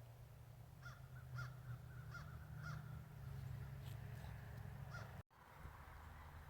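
A bird calling outdoors: four short calls in quick succession, then one more about two seconds later, over a steady low rumble. The sound cuts off suddenly a little after five seconds.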